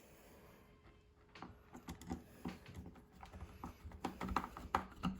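Light, irregular clicking and tapping of small screws and plastic steering-wheel trim being handled and fastened by hand, starting about a second and a half in.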